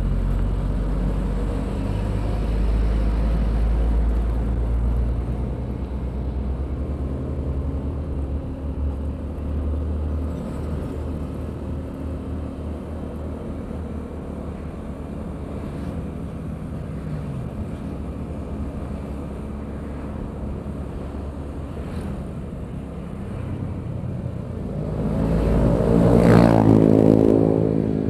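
Road traffic in a jam, heard from a motorcycle: engines running steadily at low speed. A louder vehicle passes close near the end, its pitch falling as it goes by.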